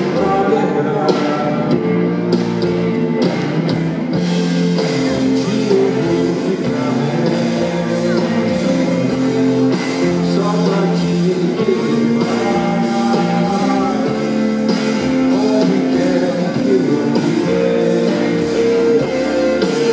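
Live rock band music: guitars and drums playing steadily, with singing over them.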